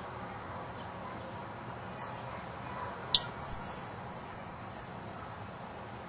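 High-pitched woodpecker calls: a short rising squeal about two seconds in, then a sharp click and a quick run of about a dozen high squeaky notes.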